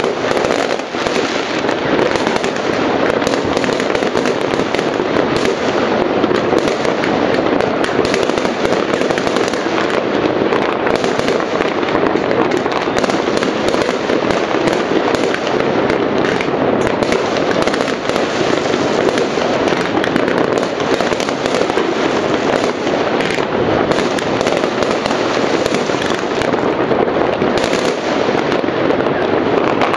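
A dense, unbroken barrage of many fireworks and firecrackers going off at once, countless overlapping bangs and crackles merging into a steady din.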